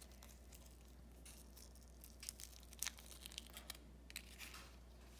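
Faint crinkling and scattered small clicks of plastic toy packaging being handled and opened.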